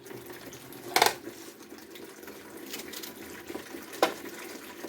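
Water running steadily from a kitchen tap, with two sharp knocks, one about a second in and one near the end.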